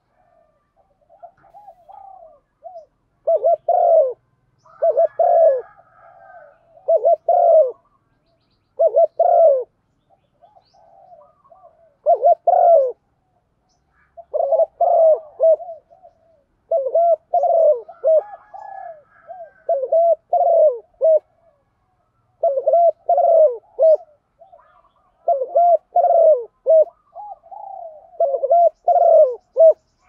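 Spotted dove cooing over and over in short phrases of about a second each, faint at first and then loud from about three seconds in. This is a female's call, used as a lure to stir males into calling.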